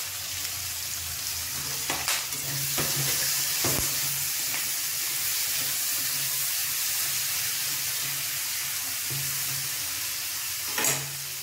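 Sliced onions sizzling in hot oil in a steel kadai, stirred with a spatula that clicks against the pan a few times.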